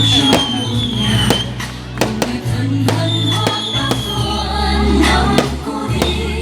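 New Year's fireworks going off in many sharp, irregular bangs over loud music with a steady bass. Now and then a high whistle falls slowly in pitch.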